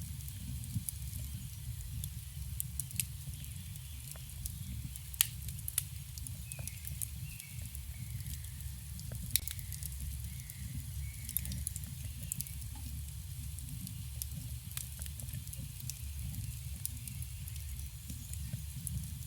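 Campfire burning: burning wood crackling with scattered sharp pops, a few louder snaps among them, over a steady low rumble.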